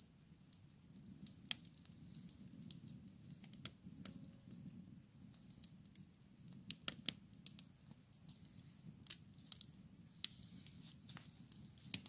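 Wood campfire in a metal fire pit crackling: irregular sharp pops and snaps from the burning logs over a faint, steady low rumble.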